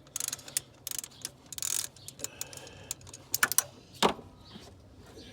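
Scattered metal clicks and knocks from hand tools being handled on a harmonic balancer puller, with a short scrape just before two seconds in and a few sharper knocks later.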